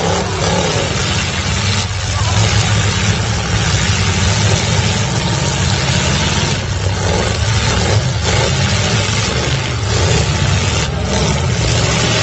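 Demolition derby car engines running and revving loudly together, with a dense steady noise over them and a few sharp knocks.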